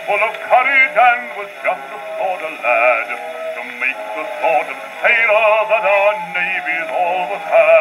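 An Edison Bell 78 rpm shellac record, probably from before 1920, playing on a portable wind-up gramophone: an English bass singer sings a music-hall song with a wide vibrato. The sound is thin and boxy, with no deep bass and no high treble.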